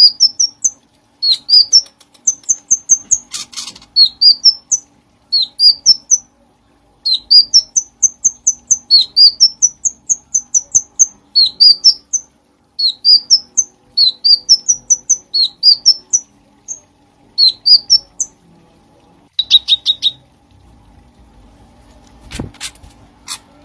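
Cucak cungkok songbird singing loudly, with quick phrases of short, rising, high chirps repeated one after another. The song breaks off about twenty seconds in, leaving a faint steady hum and one sharp click near the end.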